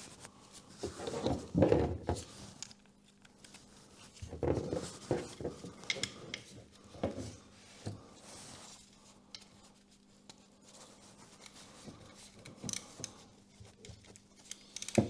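Metal hand tools and parts clinking, clicking and scraping in an irregular series of small knocks while a bolt near the oil filter of a BMW R1100GS boxer engine is worked on by hand, with a faint steady hum underneath.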